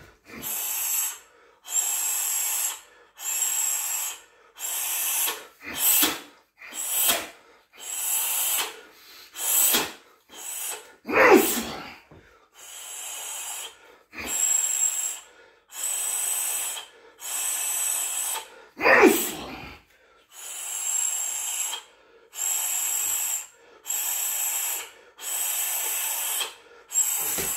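A Muay Thai fighter's sharp hissing exhalations through the teeth, about one a second, timed to his kicks and knees. Two louder, fuller grunted exhalations come about 11 and 19 seconds in.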